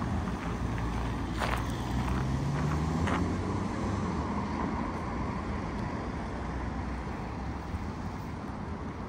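City street traffic: a car's engine note rises as it accelerates past between about one and a half and three seconds in, over a steady wash of road noise. A few footsteps sound in the first three seconds.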